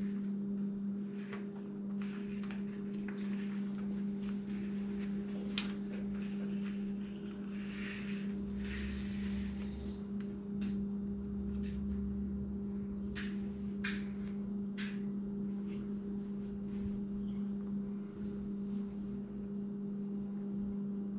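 A steady low electrical-sounding hum, with scattered light clicks and knocks of small parts and tools being handled and a brief rustle about eight seconds in.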